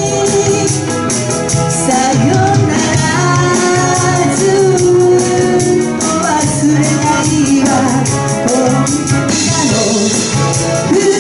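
Live pop band playing with a singer's voice over drums, bass and keyboard, with a fast steady beat of cymbal or hi-hat strokes.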